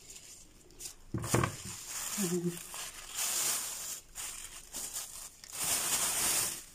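Thin plastic bag crinkling and rustling as gloved hands pull ears of sweet corn out of it, loudest near the end.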